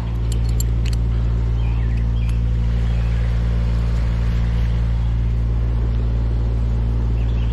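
An engine running steadily at idle, a constant low even hum, with a few light clicks about half a second in.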